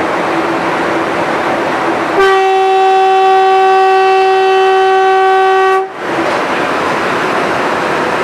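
Train 18 (Vande Bharat Express) horn, heard from the driver's cab, sounding one long steady note for about three and a half seconds starting about two seconds in. Underneath it the constant rushing running noise of the train at high speed.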